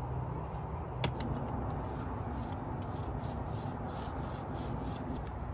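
A paint roller rolling wet white topside paint over a sanded fiberglass boat transom: a soft, steady rubbing of repeated rolling strokes.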